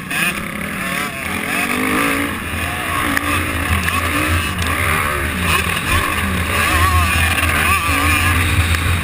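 Honda 250 motocross bike's engine revving hard under acceleration, its pitch rising and falling over and over as the rider works the throttle and shifts along the dirt track.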